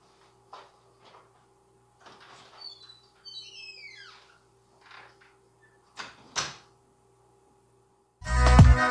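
Scattered light knocks and clatter, with a high squeak that falls in pitch about three and a half seconds in and a louder bang about six seconds in, over a faint steady hum. Loud music starts near the end.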